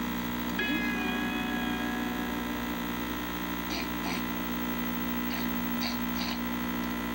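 Steady electrical hum. A brief high tone sounds about half a second in, and a few short hissy bursts come near the middle.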